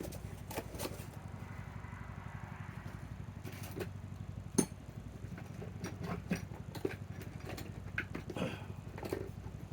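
Scattered clicks and clinks of drill bits and tools being handled while someone looks for another bit, with one sharp knock about halfway, over a steady low hum.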